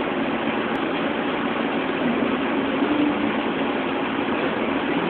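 Steady background din of a public aquarium hall, with no distinct events.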